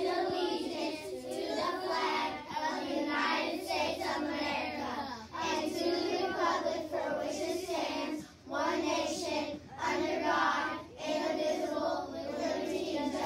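A class of young children reciting the Pledge of Allegiance together in unison, phrase by phrase with short pauses between phrases.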